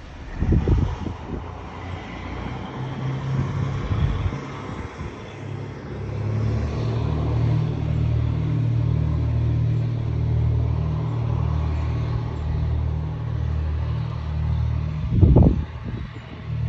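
Lifeboat's diesel engines droning steadily under power, with a slow pulsing in the drone that builds about five seconds in. Two brief buffets of wind on the microphone, about half a second in and again near the end.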